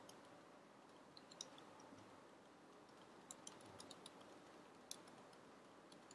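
Faint, irregular keystroke clicks of a computer keyboard as text is typed, over a low room hiss.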